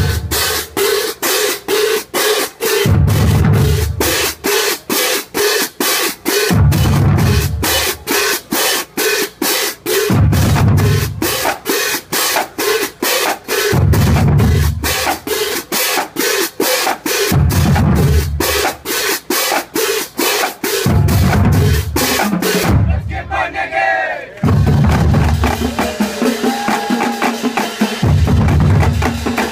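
High school drumline playing a cadence: rapid, even snare strokes over a deep bass drum hit about every three and a half seconds. About three quarters of the way through the pattern breaks off briefly, then the drumming picks up again a little softer.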